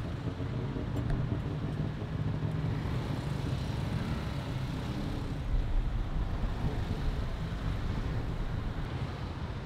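Motor scooter riding through road traffic: engine and traffic running with a steady low rumble.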